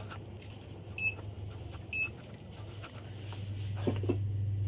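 Two short electronic beeps about a second apart, over a steady low hum.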